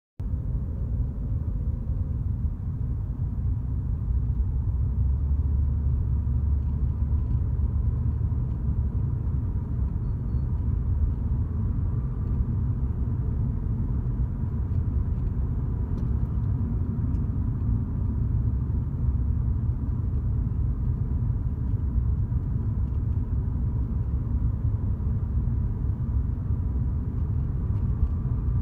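Steady low road and engine rumble of a moving car, heard from inside its cabin.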